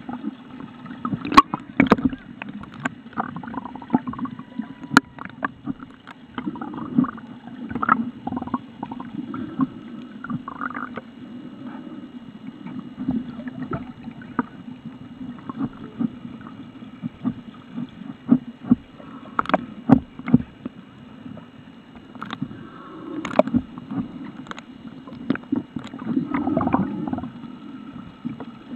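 Underwater sound picked up by a camera below the surface among swimming snorkelers: a steady muffled wash of water with scattered sharp clicks and knocks, over a faint steady high tone.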